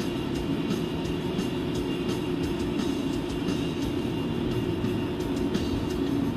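Steady road and tyre noise heard inside a moving car's cabin, with the ventilation fan blowing.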